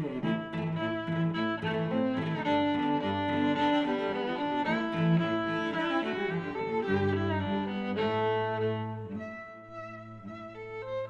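Background music played by bowed strings, violin and cello, with notes changing at a steady pace and a softer passage near the end.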